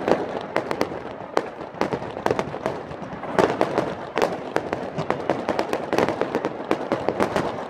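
Fireworks display: a rapid, irregular stream of sharp bangs and crackles from aerial shells bursting, thickest in flurries about halfway through and again near the end.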